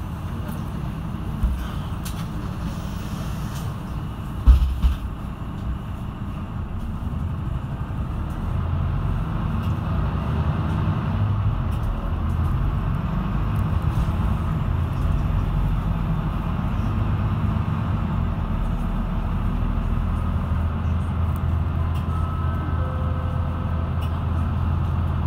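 Mercedes-Benz Citaro II city bus heard from inside: its engine and drivetrain running as the bus moves off and drives along, the low rumble building from about eight seconds in. A single thump comes about four seconds in.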